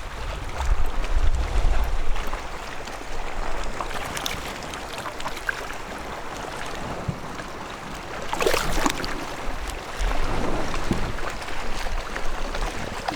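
Water lapping and sloshing around a kayak, with wind rumbling on the microphone and small knocks from handling. A brief louder splash-like burst comes about two-thirds of the way through.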